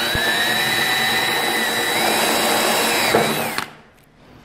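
Power drill boring a hole through an aluminium storefront frame: a loud, steady motor whine that edges up in pitch about two seconds in, then stops about three and a half seconds in.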